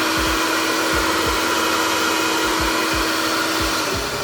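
Mantianyou M 8587 2200 W hair dryer running: a steady rushing blow of air with a steady hum of tone in it. Near the end the tone fades and the sound shifts.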